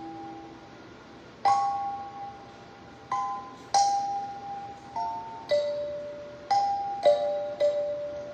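Kalimba played slowly: single plucked tines and two-note pairs, each ringing out and fading before the next, about a note a second. The chiming phrase sounds like doorbells.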